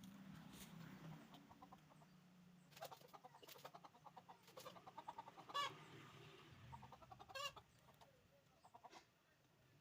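Chickens clucking faintly, with a few short calls, the clearest about halfway and again about two thirds through. A faint low hum underneath dies away after the first few seconds.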